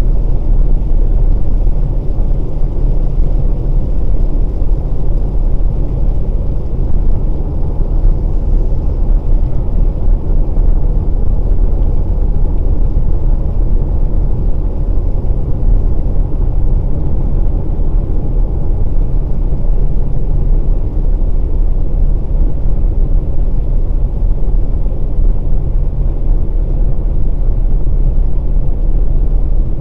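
Steady low rumble of a 2020 Volkswagen Passat Variant 1.6 TDI, a four-cylinder diesel car, being driven at an even speed: engine and road noise without change in pitch.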